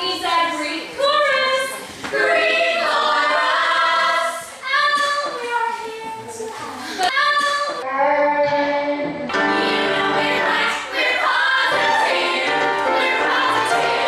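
Musical-theatre number sung by a group of mostly female voices in chorus over backing music.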